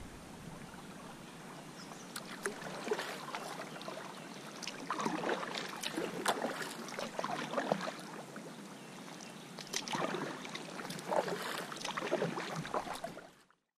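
Kayak paddle strokes in calm water: the blades dip in with irregular splashes and drips, thickest in two spells about five and ten seconds in. The sound cuts off suddenly just before the end.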